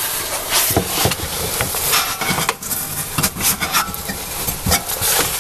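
Metal clattering and scraping as a gas oven's bake burner tube is handled in its sheet-metal burner compartment: a quick, irregular run of clicks and rattles.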